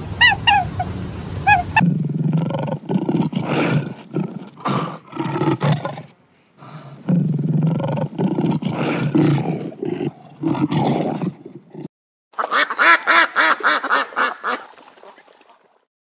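Lioness roaring and grunting in a long series of short, rough calls for about ten seconds, then, after a brief gap, a ruddy shelduck giving a quick run of honking calls for about three seconds. It opens with high, falling chirps that stop about two seconds in.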